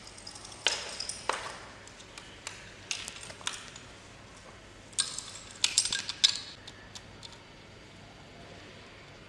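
Metal clinks and clicks of a stainless steel flexible hose fitting and hinged clamp being handled and fitted onto a vacuum pump's metal inlet port. They come in three short bursts of sharp clicks and stop after about six and a half seconds.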